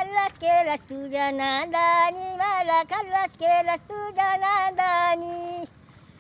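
A woman singing in a high voice, a slow melody with long held notes. The singing cuts off about half a second before the end.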